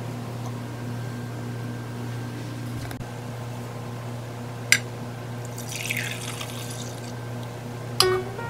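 Brewed coffee poured from a glass carafe into a glass mug, a splash of liquid lasting about a second, with a sharp glass clink before the pour and another near the end.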